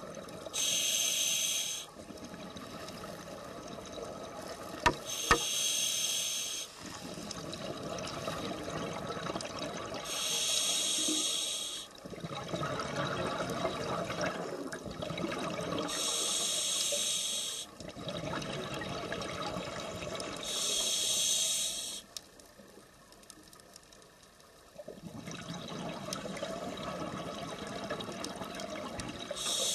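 Scuba diver breathing through a regulator underwater: a rough inhale and then a hissing burst of exhaust bubbles, repeating about every five seconds, with a pause of a few seconds near the end. A couple of sharp clicks come about five seconds in.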